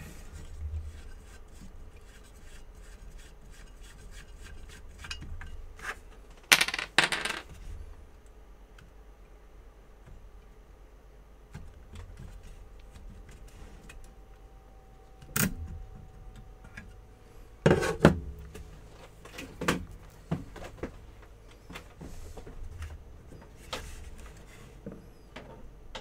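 Taarup Ten-X harvester joystick control box being taken apart by hand: its metal faceplate and circuit boards click, clink and knock against each other and the bench, with louder clunks about seven and eighteen seconds in.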